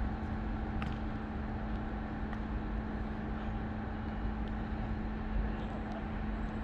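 Steady outdoor background hum: a low rumble with a constant tone running under it, and a few faint clicks.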